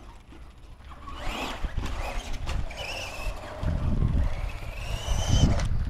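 Radio-controlled monster truck driving on asphalt: a motor whine rising in pitch toward the end, over a low rumble.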